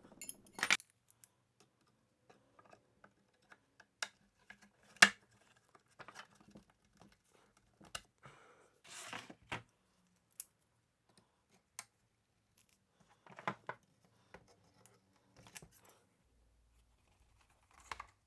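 Nails being worked out of an old wooden case with hand tools: scattered clicks and light knocks, the sharpest about five seconds in, and a short scrape about nine seconds in.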